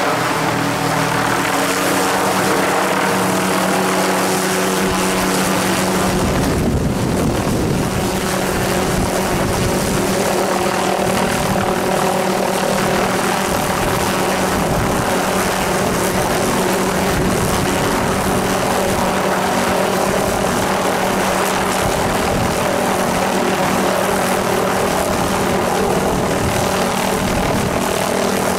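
Helicopter hovering close by with a sling load, a steady turbine and rotor sound with a whine of several steady tones. About six seconds in, a heavy low rumble comes in and stays.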